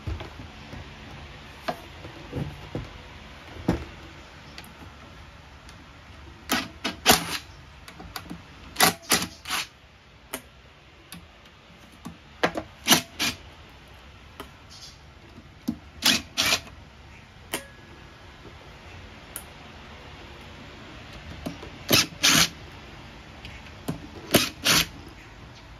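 Cordless driver backing screws out of a turbine's sheet-metal housing in short blips, two or three quick bursts at a time, about six times over, with quiet handling in between.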